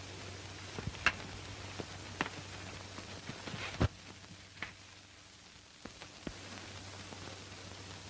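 Steady hiss and low hum of a worn 1930s optical film soundtrack, with scattered sharp clicks and crackles at irregular intervals.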